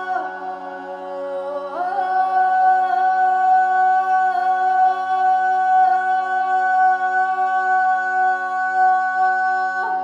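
Slow sung chant over a steady drone: the voice slides down at the start and back up about two seconds in, then holds one long note, changing pitch just before the end.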